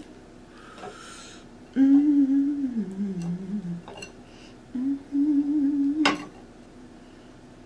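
A woman humming with closed lips in two held phrases: the first note sinks lower toward its end, the second stays level. A short hiss comes about a second in, and a sharp click comes about six seconds in.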